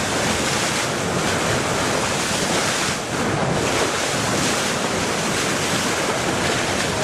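Steady wind rushing over the microphone, mixed with the wash of water from a boat running at sea.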